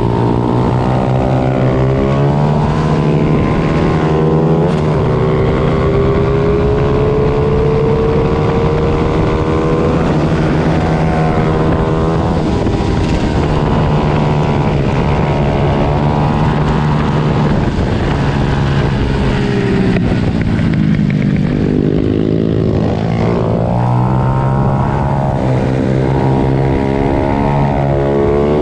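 Several small 90 cc pit bike engines racing, their pitch rising and falling over and over as the riders throttle up and back off. One engine drops sharply in pitch about twenty seconds in, then climbs again.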